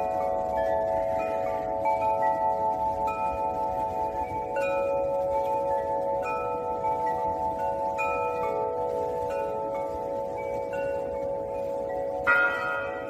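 Tubular wind chimes ringing, the tubes struck again and again, their tones overlapping and lingering. One louder strike comes near the end.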